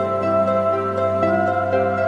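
Background music: a calm new-age track of sustained pitched notes over a held bass note.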